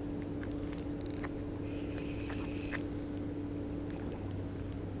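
Spinning reel's drag giving line in short clicks and a brief ringing run as a hooked mullet pulls against the rod, over a steady low hum.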